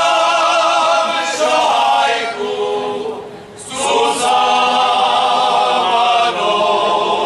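Men's folk choir singing unaccompanied in several-voice harmony, a Moravian folk song. Long held phrases, with a short breath break about three seconds in before the next phrase begins.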